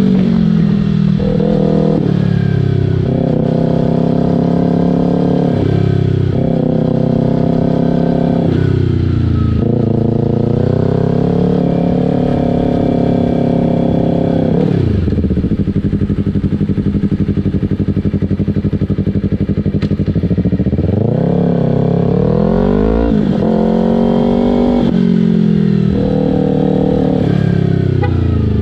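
Yamaha R3's parallel-twin engine through an aftermarket Akrapovic muffler, accelerating through the gears: the exhaust note climbs in pitch and drops at each shift, again and again. Midway it holds a steady, lower note for several seconds, then climbs and shifts again near the end.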